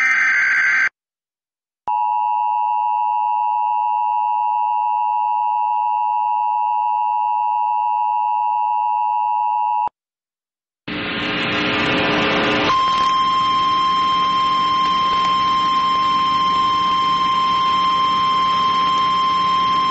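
Emergency Alert System tones. A header data burst ends within the first second. After a short gap, the two-tone EAS attention signal holds steady for about eight seconds. After another second of silence, a harsh, noisy blare comes in, with a steady high tone added about two seconds later and held to the end.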